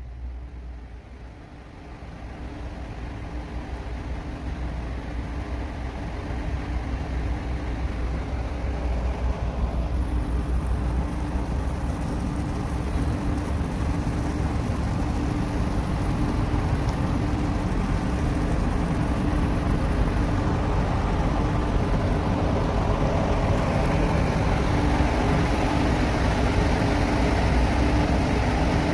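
Low, steady rumble of heavy ship diesel engines with a constant hum, growing louder over the first several seconds and then holding steady.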